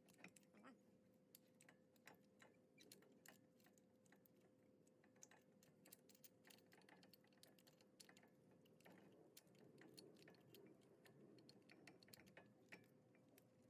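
Near silence with faint, irregular small clicks and taps of hand work on the brake caliper parts, over a faint steady hum.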